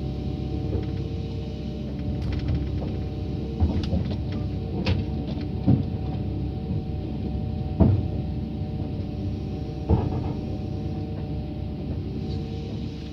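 Heavy-equipment engine idling with a steady hum, with about five sharp metal knocks and clanks from the trailer's steel ramp frame and deck as a man handles it, the loudest about two-thirds of the way through.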